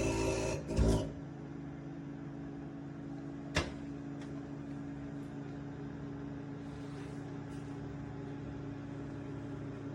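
Cuisinart CMW-200 convection microwave running with a steady electrical hum. A single click comes about three and a half seconds in.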